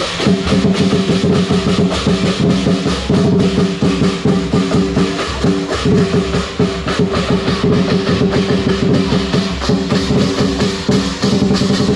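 Lion-dance drum and hand cymbals playing a fast, driving rhythm, the cymbal clashes dense and continuous over the steady drum beat.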